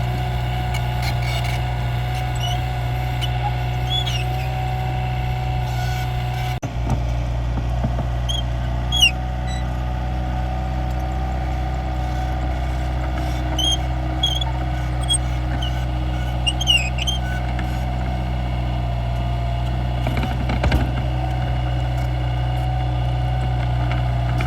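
Mini excavator's diesel engine running steadily as the machine digs, with short high squeaks here and there.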